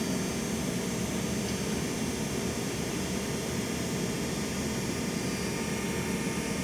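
Steady rushing noise of a running machine or blower, even throughout with no strokes or changes.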